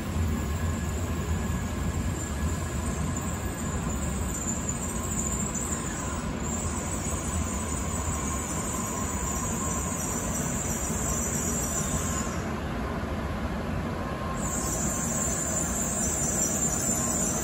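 N700-series shinkansen train rolling slowly through the station, a steady low rumble with a faint whine. A high-pitched hiss comes and goes twice in the second half.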